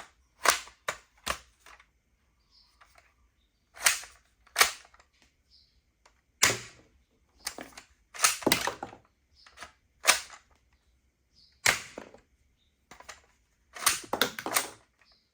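Hard plastic clicks and snaps from a plastic toy gun or its packaging being handled, coming at irregular intervals, some singly and some in quick clusters of two or three.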